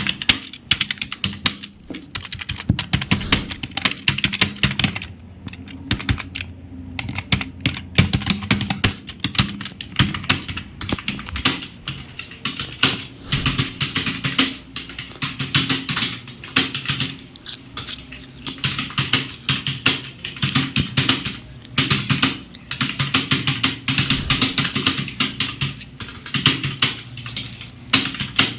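Fast typing on a computer keyboard during a timed typing speed test: a rapid, uneven clatter of keystrokes in quick runs with brief pauses.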